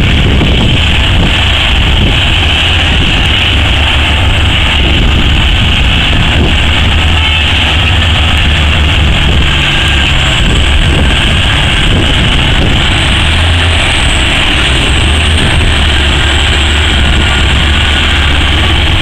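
Heavy diesel engines of an O&K RH120-C hydraulic mining shovel and a Caterpillar 777F haul truck working together, a loud steady low rumble with no pauses.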